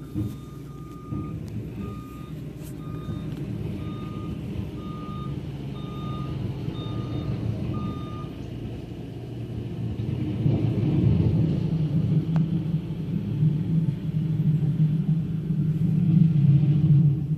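Compact track loader clearing snow: its backup alarm beeps evenly, a little more than once a second, and stops about eight seconds in. Its diesel engine runs underneath and gets clearly louder, working hard, from about ten seconds in.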